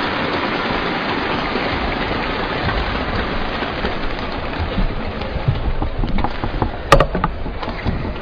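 Arena crowd applauding, the clapping thinning out over the last few seconds, with one sharp knock near the end.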